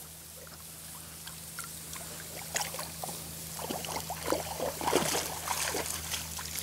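Water splashing and sloshing as Labrador retriever puppies and an adult black Lab paddle and wade through a shallow river to the bank. The splashing is light at first and grows busier with irregular splashes after about two and a half seconds, over a steady low hum.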